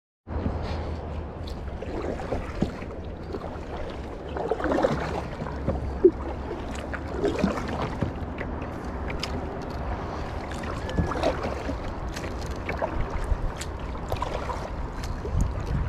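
Lake water lapping and splashing against a kayak hull, with irregular small splashes and drips and a steady low wind rumble on the microphone. It begins suddenly a moment in.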